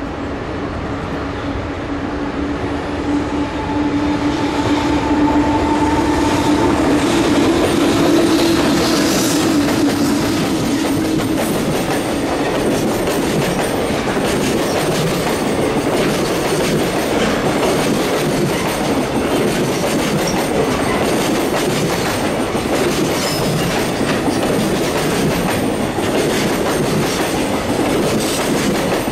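Electric freight train passing: an EH500 electric locomotive's traction motors hum, rising slightly in pitch over the first ten seconds or so, then a long rake of container wagons rolls past with continuous clickety-clack of wheels over rail joints.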